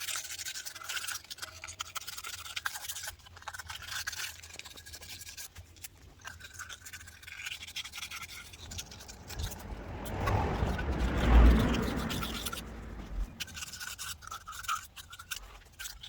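Fine 1000-grit sandpaper rubbed quickly back and forth by hand inside a brake caliper's piston bores, making a steady, fast scratching that smooths the cylinder walls. About ten seconds in, a louder, deeper noise swells for about three seconds.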